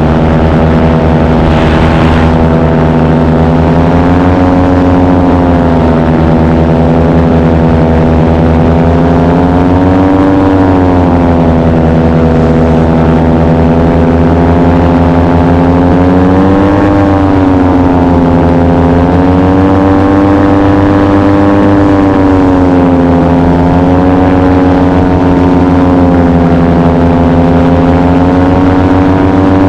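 Paramotor engine and propeller running steadily in flight, its pitch drifting gently up and down a few times.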